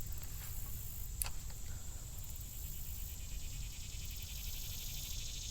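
Steady high-pitched insect chirring with a low rumble beneath, and a single short click about a second in.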